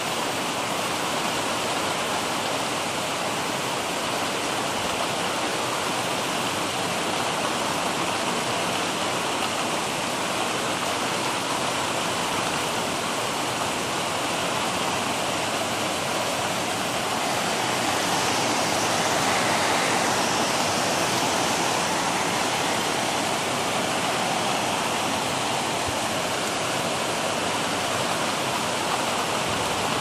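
Heavy rain falling steadily, a continuous even hiss that swells a little just past the halfway point.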